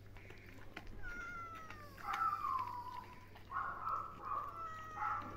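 A domestic cat meowing several times for food: two long meows falling in pitch, then a run of shorter meows.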